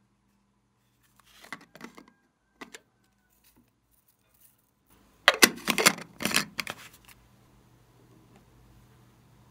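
Light plastic clicks as a hollow plastic container is handled, then about two seconds of loud rattling as it is shaken upside down and glitter flakes tumble out onto the tray.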